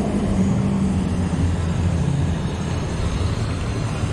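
Steady low rumble of wind and riding noise on an action camera carried on a moving bicycle, with a faint hum of motor scooters on the road alongside.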